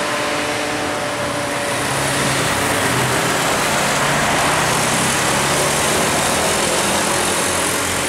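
Passing road traffic: small motorcycle engines and a car going by close, over a steady hiss of tyres on wet asphalt. It grows a little louder about two seconds in.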